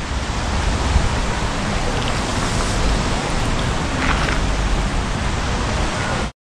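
Steady rushing noise of wind buffeting the microphone, with a heavy low rumble. About four seconds in there is a faint splash as a magnet on a rope is pulled up out of canal water.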